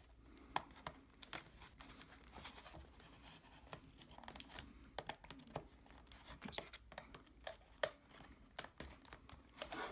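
A dull knife cutting and sawing at the cardboard tabs of a product box, with faint, irregular scrapes, clicks and tearing of cardboard.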